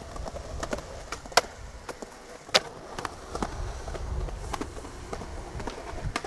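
Skateboard wheels rolling over concrete with a low rumble, punctuated by sharp clacks of boards hitting the concrete, the loudest about one and a half and two and a half seconds in.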